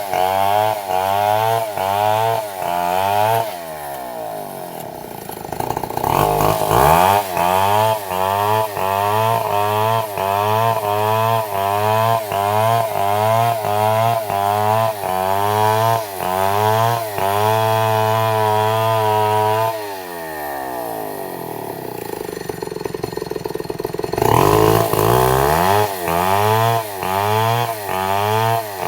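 Stihl MS 250 two-stroke chainsaw ripping lengthwise through a log to saw planks. The engine pitch rises and falls in a steady rhythm as the bar is worked back and forth in the cut. It drops to idle twice, a few seconds in and again about two-thirds through, then revs back up into the wood.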